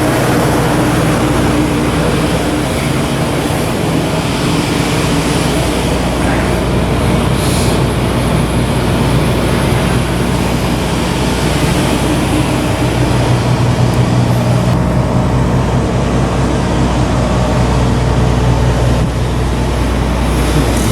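Steady machinery hum, as from a running engine or generator: an unbroken low drone with a broad rushing noise over it.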